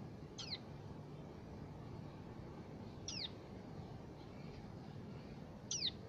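Tailorbird fledgling calling: three short, high chirps, each sweeping quickly downward in pitch, spaced about two and a half seconds apart.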